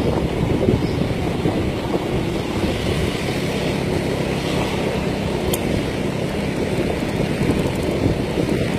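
Motor scooter under way, its engine noise mixed with wind rushing over the phone's microphone in one steady, low rush.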